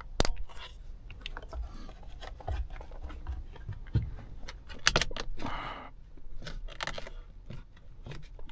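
Clicks, knocks and scrapes of hard parts being handled and pressed into place during a steering wheel installation, with a short scraping rustle about five and a half seconds in.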